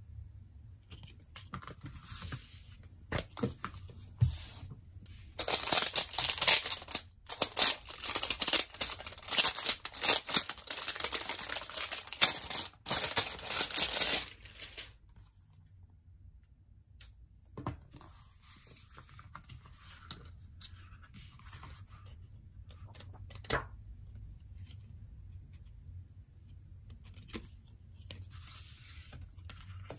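Clear plastic shrink wrap crinkling and tearing as it is peeled off a CD album: a dense, loud crackle from about five seconds in until about fifteen seconds in. Before and after it, quieter rustling and light taps of cards and the album case being handled.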